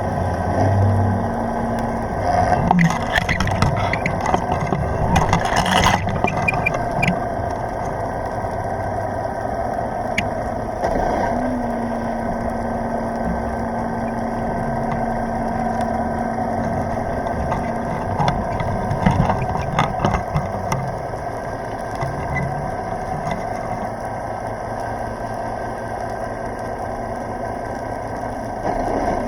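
Muffled underwater noise picked up by a submerged camera: a steady low, engine-like hum with a single held tone for about seven seconds near the middle, and knocks and rustles a few seconds in and again later on.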